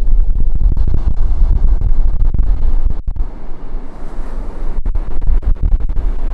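Surf washing onto a beach, heavily buffeted by wind on the camera's built-in microphone, which gives a loud, gusty low rumble.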